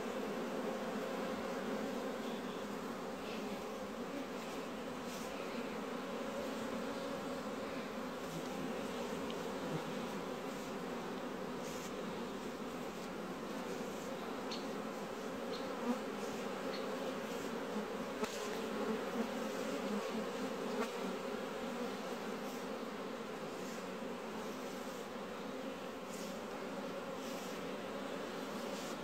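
Honeybees flying at the entrances of their hives, a steady hum of many wings.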